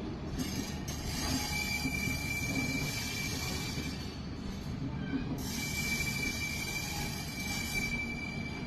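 Passenger train running on the rails, a steady rumble and hiss, with a thin high wheel squeal that comes in about a second and a half in, drops away around four seconds, and returns a little after five.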